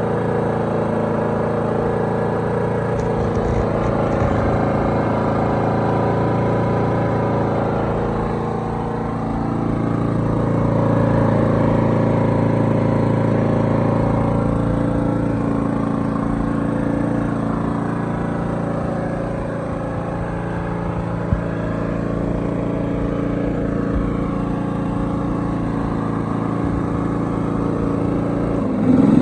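Engine of a Generac gas-powered portable generator running steadily, its pitch shifting slightly now and then.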